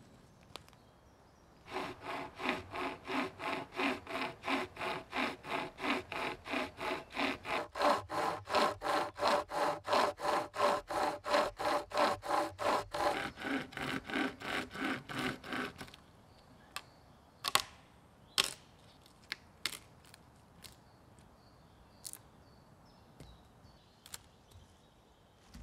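Pocket chainsaw cutting through a fallen branch in quick back-and-forth strokes, about three a second, for some fourteen seconds, then it stops. A few sharp wooden knocks follow.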